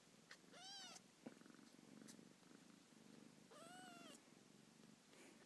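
Five-day-old kitten mewing twice, faint high-pitched calls that rise and then fall. Soft purring continues underneath.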